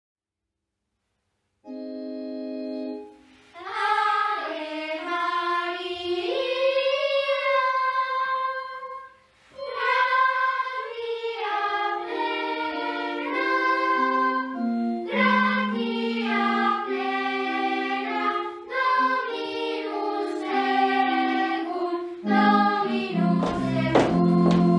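Music: after a short silence a held keyboard chord sounds, then a voice sings a slow melody with vibrato over sustained organ-like chords. The singing breaks off briefly about nine seconds in and then carries on.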